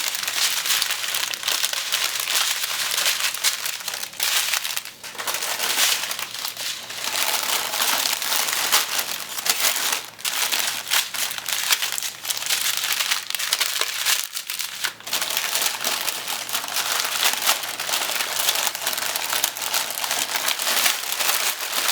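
Small plastic bags of diamond-painting drills crinkling as they are handled and packed back into a larger plastic bag, with a few short pauses.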